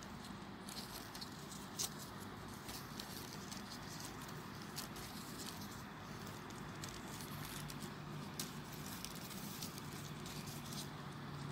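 Faint rustling of folded paper units on a 3D origami model as fingers handle and press them, with scattered small sharp ticks over a steady hiss.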